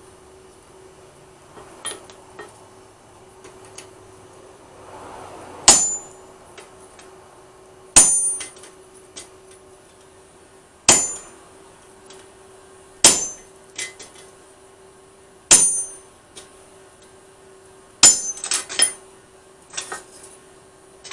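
Hammer striking a thin steel lawnmower blade on an anvil, single ringing blows every two to three seconds, then a quick run of several strikes near the end.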